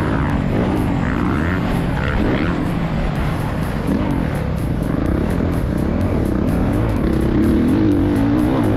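Four-stroke motocross bike engine, a Honda CRF450R, heard onboard, revving up and down again and again as the rider accelerates, shifts and slows on a dirt track, with wind on the microphone.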